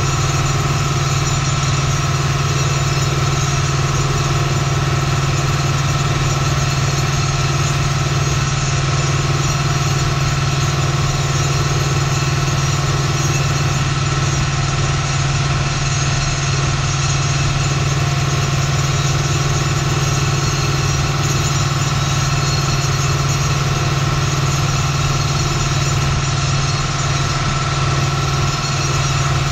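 Deutz-Fahr DX 3.65 tractor's air-cooled diesel engine running steadily under load inside the cab, driving a Pöttinger NovaDisc 265 disc mower through the PTO. The result is an even, unbroken drone with a strong low hum.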